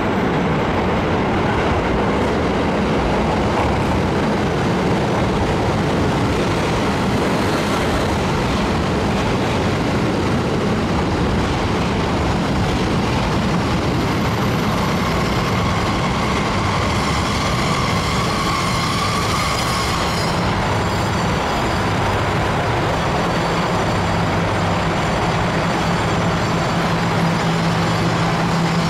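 A train at a station platform: a steady, loud running noise, with a low engine hum coming in over the last few seconds.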